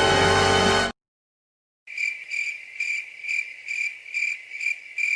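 A music clip cuts off about a second in; after a second of silence comes the crickets-chirping sound effect, a steady high chirp pulsing about twice a second. It is the stock meme cue for an awkward silence.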